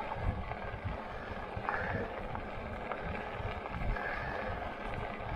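Fat tyres of a Lectric XP e-bike rolling over a crushed-stone trail: a steady, uneven low rumble, mixed with wind on the microphone.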